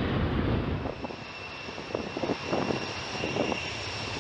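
Pratt & Whitney F117 turbofans of a C-17 Globemaster III landing: a steady high turbine whine over a rumble. The rumble drops abruptly about a second in, leaving the whine.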